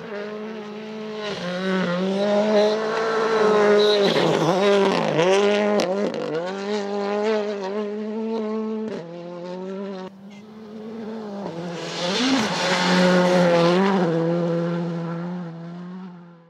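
Gravel rally car engines running at full throttle, the pitch climbing and dropping through gear changes, with a hiss from the tyres on loose dirt. It is loudest a few seconds in and again from about twelve seconds in, and cuts off near the end.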